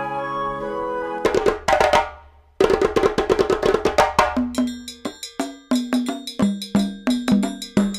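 Background music: held notes, then about a second in a fast run of sharp percussion strikes. After a brief break near the middle, the percussion goes on in a steady beat with short pitched notes.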